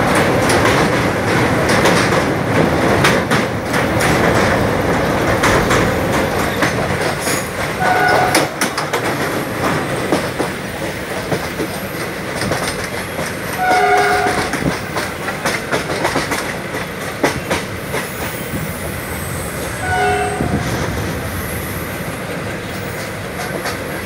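A train running at speed, heard from on board: wheels rumbling and clattering over the rails throughout. A train horn sounds three short blasts, about six seconds apart, the middle one the longest.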